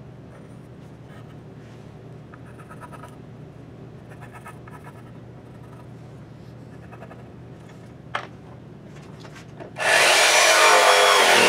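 A few faint clicks and handling taps over a low steady hum, then a jigsaw starts abruptly near the end and runs loud, its pitch wavering as it cuts a laminated wood board.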